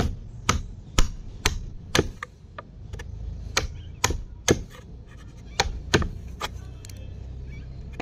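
A chisel being struck as it cuts into a wooden beam: sharp knocks about two a second in three short runs, stopping about six and a half seconds in.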